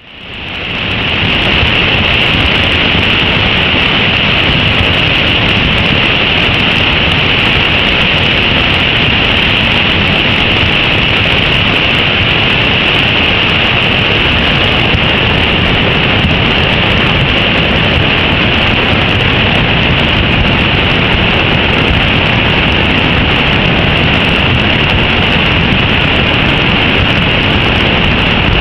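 Mountain river in flash flood, swollen by heavy rain and snowmelt: fast, muddy floodwater rushing loudly and steadily. It fades in over about the first second and a half.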